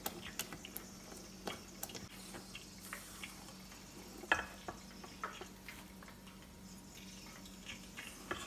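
Silicone spatula beating thick akara bean batter in a stainless steel bowl: soft, irregular taps and squishes against the metal, over a faint steady hum.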